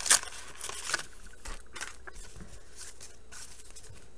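A stack of 1989 Bowman baseball cards being thumbed through by hand: dry card-stock sliding and flicking against card in soft, irregular ticks, with one sharper snap right at the start.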